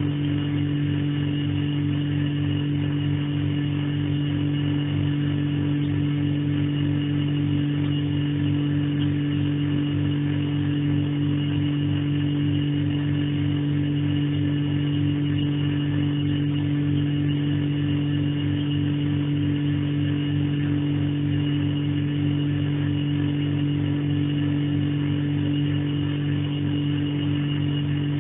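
Refrigerator compressor running with a steady, loud hum and a fast, even flutter underneath.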